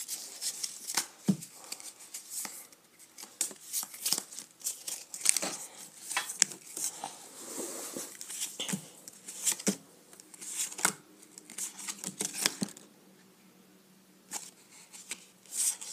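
Pokémon trading cards being flipped through by hand: a run of papery flicks, slides and rustles of card stock, with a short pause near the end.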